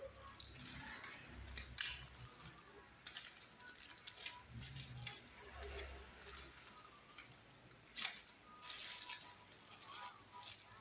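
Goods and packaging being handled during an unboxing: scattered rustles, clicks and light knocks at irregular intervals.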